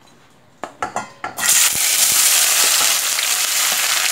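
Finely chopped onions go into hot oil in a steel pan: a few light knocks, then loud, steady sizzling from about a second and a half in.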